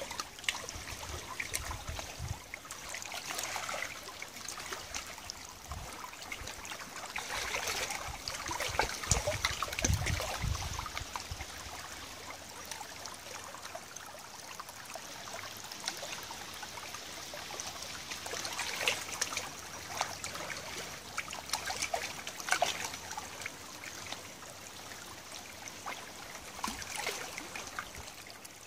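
Shallow tidal river water trickling and lapping among stones and gravel, with many small splashes, swelling louder about a third of the way in and again about two-thirds in.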